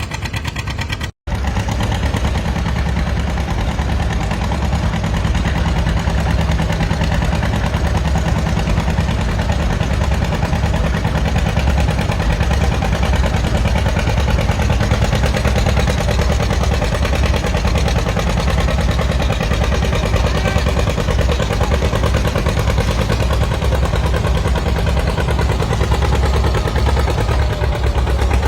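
Antique tractor engine running loud and steady, with a rapid, even exhaust beat. The sound cuts out completely for an instant about a second in.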